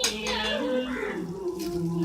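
Background music from a Tamil film song, in an instrumental stretch with held notes, and a sharp click right at the start.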